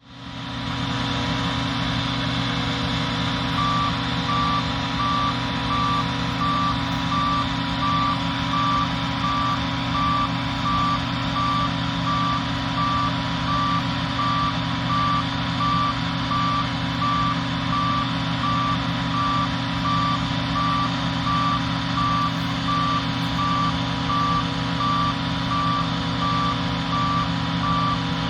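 A large diesel farm machine's engine running steadily. From about four seconds in, a reversing alarm sounds over it: a single high beep repeated at an even pace.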